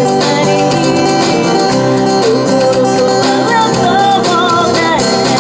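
Live acoustic band: a woman singing a melody into a microphone over two strummed acoustic guitars. The vocal line becomes prominent about two seconds in.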